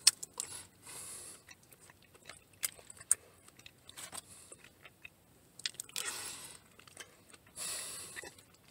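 A person chewing a mouthful of loco moco (rice, fried egg and hamburger patty in sauce) close to the microphone, with scattered small clicks, the loudest right at the start.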